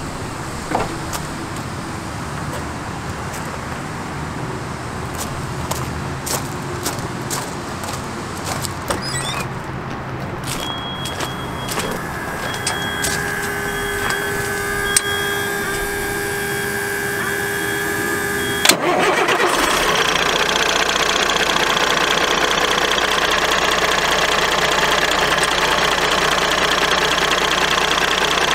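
A 2005 Kenworth T300's Cummins ISC diesel being started. A few clicks and knocks are followed by a steady whine with a high on-off beeping, then the engine catches sharply about 19 seconds in and runs at a steady, louder idle.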